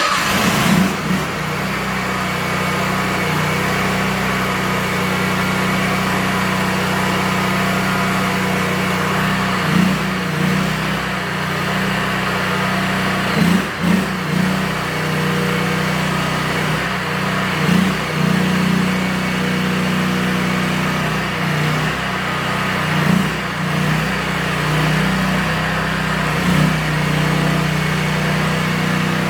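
Engine of an AGT KTT23 ride-on mini skid steer track loader running steadily, with a few brief rises in engine sound along the way.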